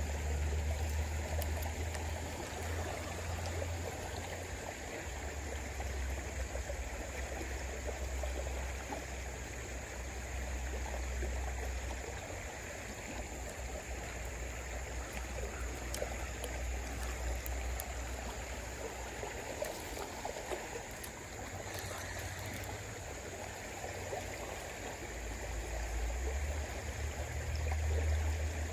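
Shallow creek water running over a riffle, a steady rushing hiss. A very low rumble comes and goes underneath it.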